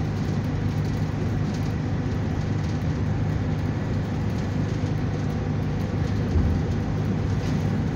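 Steady engine and road rumble inside a moving passenger bus, with a brief low bump about six seconds in.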